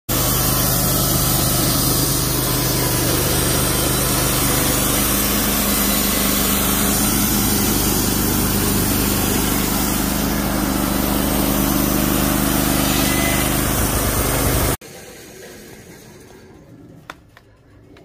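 Wood-Mizer LT15 Wide portable band sawmill running, its engine at a steady speed, stopping abruptly about fifteen seconds in. After that only a faint background remains, with a single sharp click.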